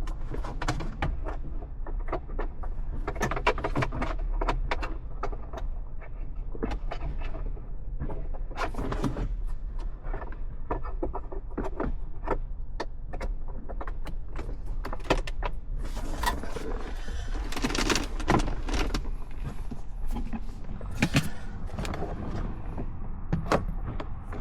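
Plastic dash trim and gauge-cluster parts being handled and fitted: scattered clicks, knocks and rattles, busiest around two-thirds of the way through, over a steady low hum.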